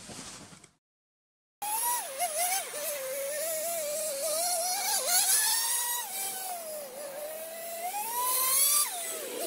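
Small nitro glow engine of a water-cooled RC snowmobile running out of sight, its high whine rising and falling with the throttle. It starts after a brief silence, climbs near the end, then drops off sharply.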